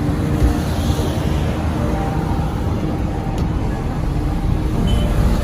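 Street traffic: a steady low rumble of vehicle engines, with a few faint engine tones above it.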